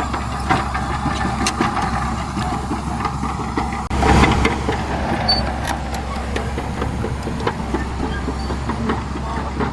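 Bulldozer diesel engine running steadily under load, with scattered metallic clanks from its steel tracks. About four seconds in there is a brief, louder rush of noise.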